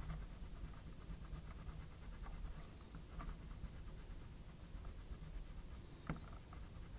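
Colored pencil scratching on paper in short, quick shading strokes, with a light tap about six seconds in.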